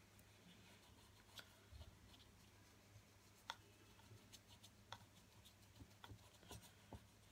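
Near silence: faint scratches and light clicks of a small paintbrush working paint onto cardboard, over a low steady hum.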